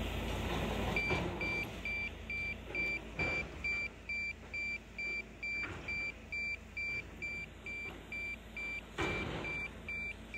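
A warning beeper sounding at one pitch, about two short beeps a second, starting about a second in, over the low running of a Volvo EC300D crawler excavator's diesel engine. A few knocks of rubble break in, the loudest near the end.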